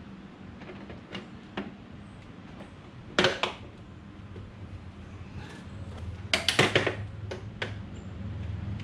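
Hard plastic clicking and clacking as a black plastic truck grille is handled and pressed onto a plastic bumper cover, its clips snapping and knocking: a few light clicks, a louder clatter about three seconds in, and a quick run of sharp clacks a little past six seconds, over a low steady hum.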